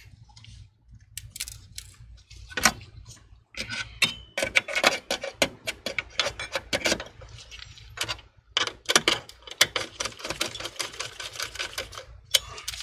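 Small metal and plastic computer parts clicking and ticking as gloved hands handle a motherboard's M.2 heatsink cover and an M.2 drive, in quick irregular runs with a few louder knocks.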